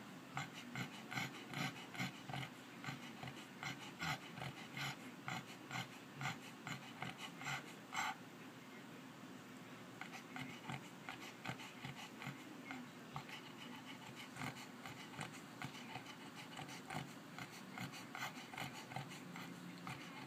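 A sleeping pet snoring in short, quick breaths, about two a second. The breaths turn softer about eight seconds in and keep the same rhythm.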